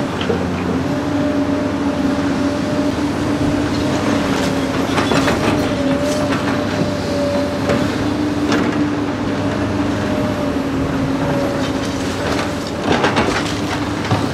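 Diesel engines of a tracked excavator and an articulated dump truck running steadily, with a continuous hum and low rumble. Short metallic clanks and rattles come through several times, around four to six seconds in, near nine seconds and again near thirteen seconds.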